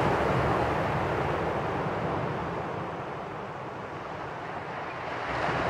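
Sea waves rushing, a steady wash that eases in the middle and swells again near the end.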